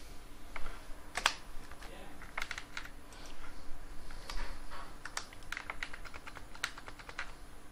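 Computer keyboard typing: irregular single keystrokes and short runs of keys.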